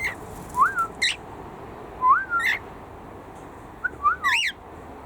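Cockatiels whistling and calling: three short whistled notes that rise and fall, each paired with higher wavering chirps.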